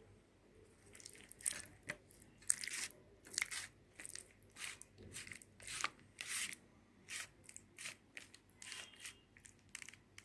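Aluminium foil food container crinkling and scraping as it is handled and filled: a run of short crisp noises, about two a second, starting about a second in.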